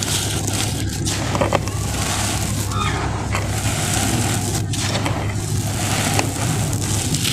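Handfuls of dry red sand poured through the fingers onto a loose sand floor: a continuous gritty hiss with scattered small crackles. A steady low rumble runs underneath.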